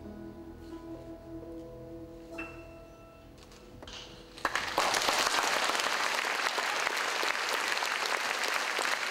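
The final soft notes of a piano-led jazz trio ring and fade. About four and a half seconds in, applause from a large audience breaks out suddenly and carries on loudly and steadily.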